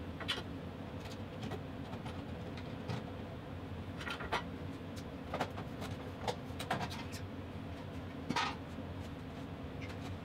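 Scattered clicks and light knocks of a ceiling fluorescent light fixture being taken apart by hand, with the loudest near the end, over a steady low hum.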